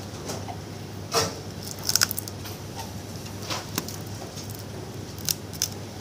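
Sharp plastic clicks and taps from a smartphone being handled with a suction cup on its screen, including a quick run of ticks about two seconds in, over a steady low hum.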